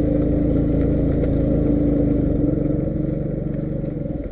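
Skoda Rapid's engine and exhaust running as the car drives slowly, heard from under the rear bumper: a steady low drone whose strongest tone fades about three seconds in, the sound easing slightly.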